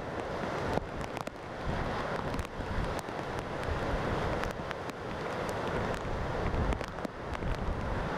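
Heavy storm surf breaking against the pier, with strong wind gusting across the microphone and a few faint ticks.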